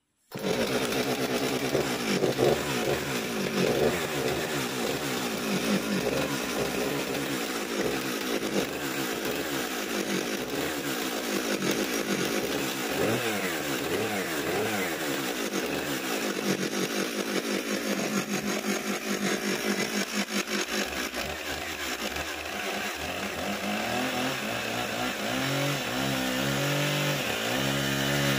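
Husqvarna two-stroke chainsaw starting abruptly and running, revving up and down. In the last few seconds it cuts into a hardwood log on a freshly sharpened chain, its note settling lower and steadier under load.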